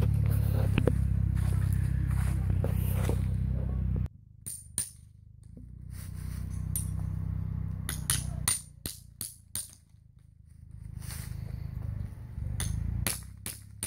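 A low steady rumble, cut off abruptly about four seconds in. Then a string of sharp metallic clinks and taps from a hammer and hacksaw at work on a white plastic pipe, some single and some in quick runs of about three a second.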